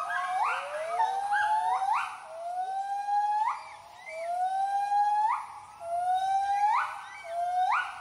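White-handed gibbons giving their territorial hooting call: a series of rising whoops, roughly one a second, each note a long glide that swings sharply upward at its end. A second gibbon's hoots overlap in the first couple of seconds.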